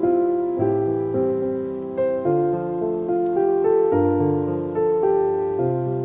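Background piano music: a slow melody over sustained chords, with a new note or chord roughly every half second to second.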